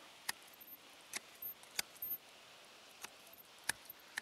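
Large hand shears snipping western thuja foliage: a run of about eight short, crisp cuts at an uneven pace.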